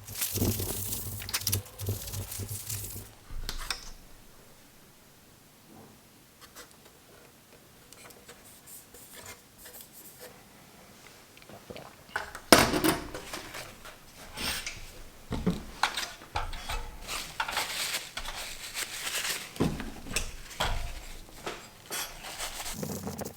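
Small metal parts and tools handled on a work surface: irregular clinks, clicks and scraping. There is a lull of several seconds, then one sharp knock and steady busy clicking.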